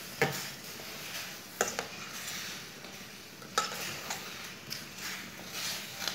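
Metal spoon stirring chopped tinda and crushed garlic in a steel kadhai. Wet scraping with several sharp clinks of spoon on pan, over a faint sizzle.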